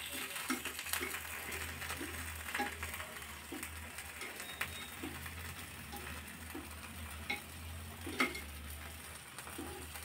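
Oil sizzling in an appe pan as the batter balls are turned over with a knife tip, which taps and scrapes against the metal cups in scattered light clicks.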